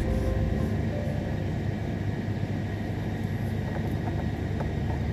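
Steady rain falling: an even rushing noise with a deep low rumble.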